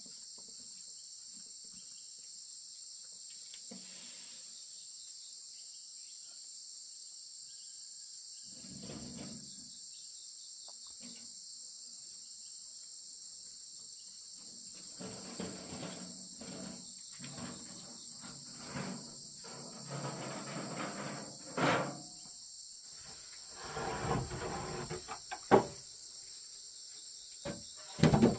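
A steady high-pitched insect chorus, with scattered knocks and rustling from about halfway on and a few sharp clacks near the end.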